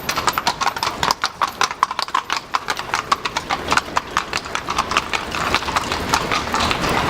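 Horse hooves clopping on the street as a horse-drawn carriage passes, a quick, uneven run of hoof strikes several times a second.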